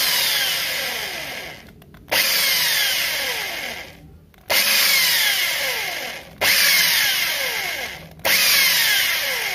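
Single-speed electric drill with a 4 mm bit drilling out the metal rivet post of a die-cast Hot Wheels car, run in five short bursts about two seconds apart, its whine falling in pitch through each burst. The drill has only one fast speed, so the trigger is pressed in short bursts to keep the cut slow.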